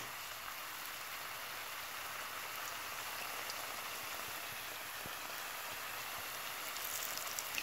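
Hot oil sizzling steadily in a skillet around frying folded tortillas stuffed with potato and tuna (dobladitas), with a few faint pops near the end.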